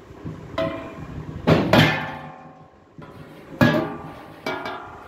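Stainless-steel (SS-304) perforated inner mesh plates of a paneer press box knocking against the steel box as they are handled: about five sharp metal clanks, each ringing briefly, the loudest about one and a half to two seconds in and again at about three and a half seconds.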